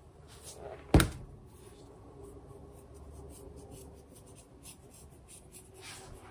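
Garlic powder shaker being handled and shaken over raw chicken: a sharp click about a second in, then faint, light ticking and rubbing.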